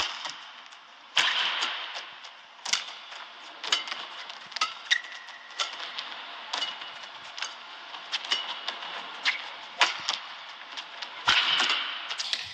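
Badminton shuttlecock struck by rackets in a series of sharp, irregular cracks during a rally, with short squeaks of shoes on the court floor. Swells of crowd noise come about a second in and again near the end.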